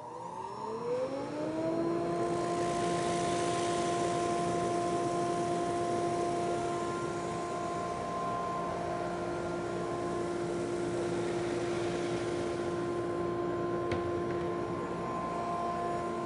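SuperMax 19-38 combo drum/brush sander's head motor spinning up, its whine rising in pitch over the first two seconds, then running steadily. From about two seconds in to about thirteen, a hiss joins it as the flatter head's abrasive-backed brush fingers sand a red oak raised-panel door passing underneath on the conveyor.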